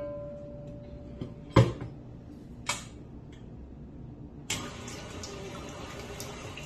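A few knocks as the tilt-head stand mixer's head is lowered onto its steel bowl, the loudest about a second and a half in. Then, about four and a half seconds in, the mixer's motor switches on and runs steadily, beating eggs and oil together.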